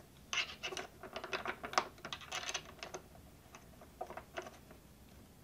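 Irregular light metallic clicks and rattles of caster hardware, the screws and metal mounting plate of a swivel caster, handled and hand-threaded against the plywood.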